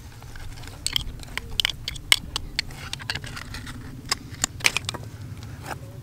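Oyster shells clicking and scraping as they are pried open with a screwdriver and a shucking knife: irregular sharp clicks, thickest in the middle stretch, over a low steady rumble.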